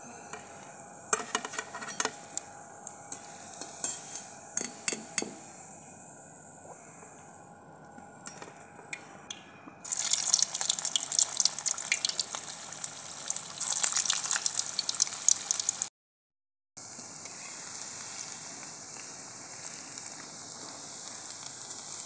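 Manchurian balls deep-frying in hot refined oil in a kadhai. For the first ten seconds the sizzle is light, with sharp clicks of the slotted steel spoon against the pan. About ten seconds in it turns to a loud, dense crackling sizzle, then cuts out for under a second and goes on as a steady frying sizzle.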